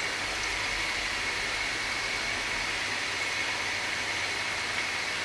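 Batter-coated chicken pieces deep-frying in hot oil in a pan: a steady, even sizzle.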